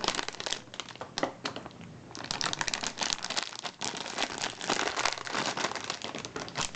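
Plastic candy packaging crinkling and crackling as it is handled and opened, the crackles growing denser from about two seconds in.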